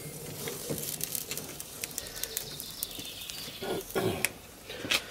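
A bird calling outdoors, with a short low call about three and a half seconds in, over scattered light clicks and taps.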